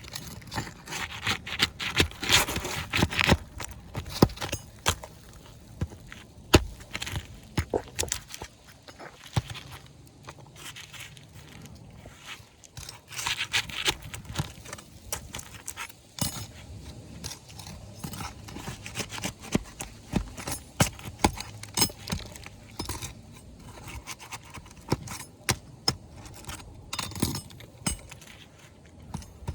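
A steel flat pry bar scraping and clicking against asphalt roof shingles as roofing nails are worked out. Brittle shingles crackle and tear. The knocks and scrapes are irregular and come in clusters, with noisier scraping about 2 seconds in and again around 13 seconds.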